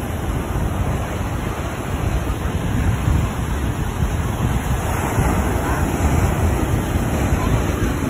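Ocean surf breaking and washing up the shore in a steady rush, with wind buffeting the microphone in a low rumble.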